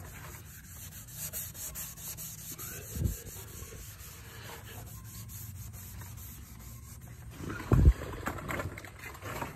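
Hand sanding of a fiberglass boat keel with a maroon abrasive scuff pad: rapid back-and-forth scrubbing strokes, scuffing the surface before primer goes on. Two dull thumps, one about three seconds in and a louder one near the end.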